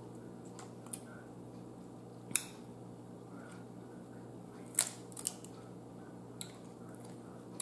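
Snow crab leg shells cracking and snapping as they are broken by hand: a few separate sharp clicks, the loudest about two and a half seconds and about five seconds in, over a faint steady hum.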